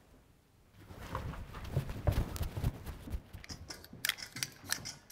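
Faint rustling and soft knocks, then a run of sharp, quick clicks in the second half.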